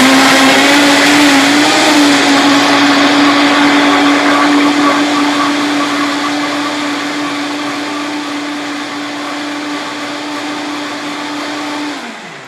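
Vitamix blender running loud and steady as it blends a kale and blueberry smoothie mix, the motor's tone under a rush of churning liquid. The pitch wavers for the first couple of seconds, then holds while the sound slowly eases. Near the end it switches off and winds down with falling pitch.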